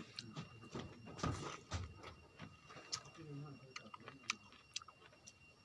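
Close-up eating sounds: chewing and small mouth clicks, with light taps scattered throughout and a brief low hum now and then.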